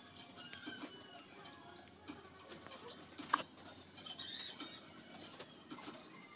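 Soft, irregular pats, squelches and small clicks of hands pressing and pinching wet cement-soaked cloth into folds, with one sharper click a little over three seconds in.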